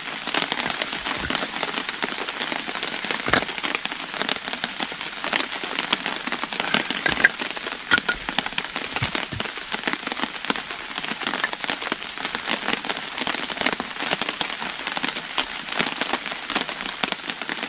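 Heavy rain pattering steadily on the wet forest floor and surrounding foliage. A few louder knocks of split kindling sticks being handled and laid down stand out over it.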